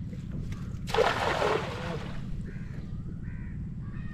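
A hand-thrown cast net landing on the water about a second in: a brief splashing hiss as the spread net and its sinkers hit the surface.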